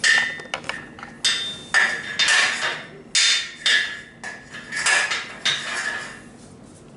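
Steel band pegs being fitted into the holes of a steel power rack upright: a series of sharp metal-on-metal clanks, about eight, each ringing briefly.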